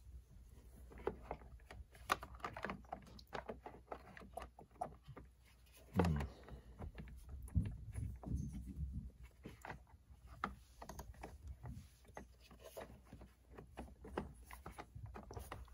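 Irregular small clicks and knocks of hard plastic parts being handled and pushed into place in a 1/8-scale RC truck's chassis, a part that will not slide in easily. About six seconds in, a short low grunt.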